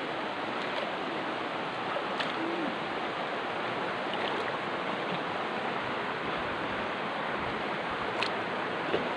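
River water rushing steadily, with a few faint clicks over it.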